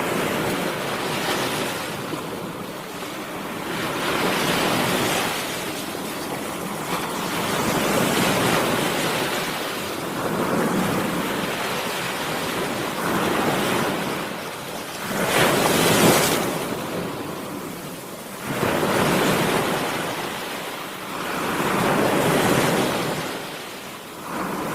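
Ocean waves breaking and washing in, swelling and ebbing about every three to four seconds, with the largest surge about two thirds of the way through.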